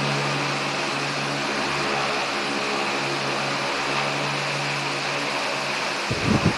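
Loren-Sid Tufão 60 cm wall fan running steadily: motor hum with a rush of air. Near the end its airflow starts buffeting the microphone with gusty rumbling.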